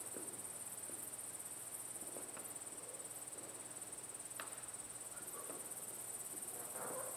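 Faint sounds of barefoot dancers moving on a stage floor: scattered soft knocks, rustles and squeaks of skin on the floor, one sharper squeak about four seconds in, over a steady high-pitched hiss.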